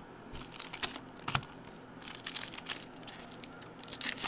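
Foil wrapper of a 2010 Bowman Platinum baseball card pack crinkling and tearing as it is opened by hand: a run of sharp crackles that grows denser about halfway through.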